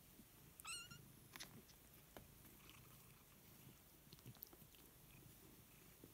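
A four-week-old kitten gives one short, high, wavering mew about a second in. After it come a few faint soft taps and scuffles as the kittens wrestle on a fleece blanket.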